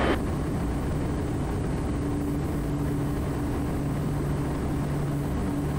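Quest Kodiak's PT6A turboprop engine and propeller at takeoff power as the plane lifts off the runway: a steady drone with a faint hum underneath.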